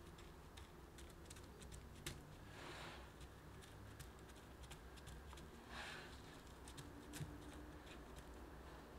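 Faint crunching and rustling of crushed digestive-biscuit crumbs as gloved fingers press them down into a metal ring mould, with scattered soft clicks and two brief scrunches.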